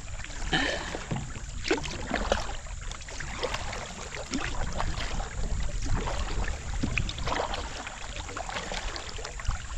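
Kayaks being paddled on a river: paddle blades dipping and splashing in irregular strokes over a steady low rumble.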